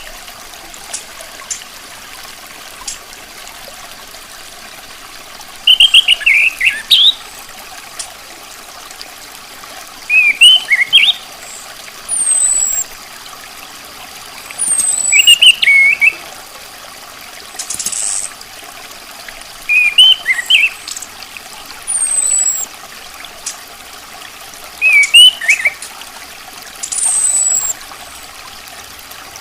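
Chestnut-capped thrush (anis kembang) calling: short, loud, warbled phrases repeated about every four to five seconds, several followed by a thin, high downslurred whistle.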